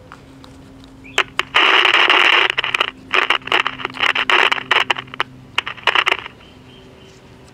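Zenith Royal 500D transistor radio's small speaker giving bursts of static hiss that start and stop as a knob is turned. The radio is coming to life on fresh 6-volt batteries. The bursts begin about a second and a half in and die away near the end.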